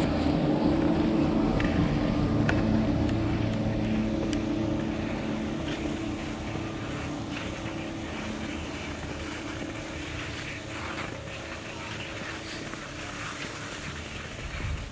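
Steady mechanical hum of chairlift machinery, fading over the first five or six seconds as the skier moves away from the lift station, over the continuous hiss and scrape of skis sliding on groomed snow.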